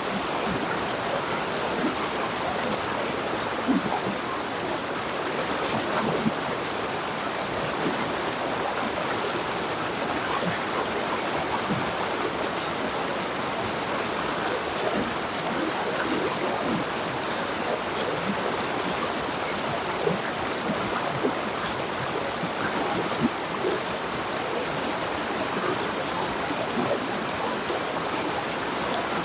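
Jungle river flowing: a steady rush of water with small splashes and gurgles scattered through it.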